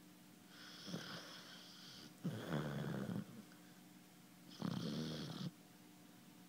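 Basset hound snoring in slow, regular breaths, a rattling snore every couple of seconds, some breaths carrying a high whistling note.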